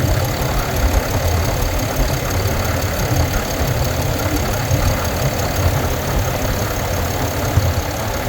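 2022 Ram 2500's Cummins 6.7-litre inline-six turbo-diesel idling steadily, with a fast, even ticking over the engine rumble; the owner is asking whether this ticking noise is a problem.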